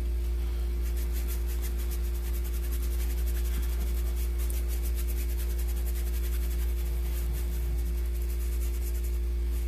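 A steady low electrical hum, with faint quick repeated strokes of a paintbrush working black fabric paint into the weave of a thin cotton-blend fabric.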